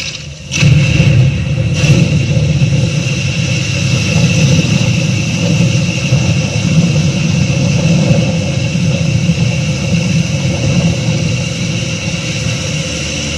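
Dam-burst flood sound effect played over the show's loudspeakers: a sudden crash about half a second in, then a loud, steady, rumbling rush of floodwater.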